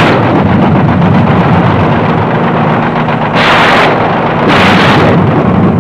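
Helicopter gunship running in flight with a steady low drone, heard from inside the cabin, broken by two short bursts of harsh noise about three and a half and four and a half seconds in.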